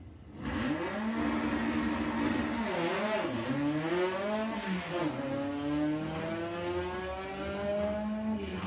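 Volkswagen Beetle drag car launching off the start line and accelerating hard down the strip. Its engine note starts suddenly about half a second in and holds steady. The pitch then dips and recovers twice, at gear changes, and climbs steadily to the end.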